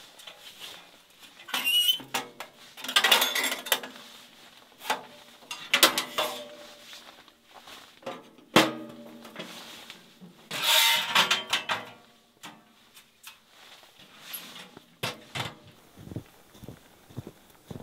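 Metal clanks and scrapes from a small sheet-metal wood stove being handled, its door and stove-top lid set in place, each strike ringing briefly. The sharpest clank comes about halfway through, followed by a longer scrape, then only soft taps near the end.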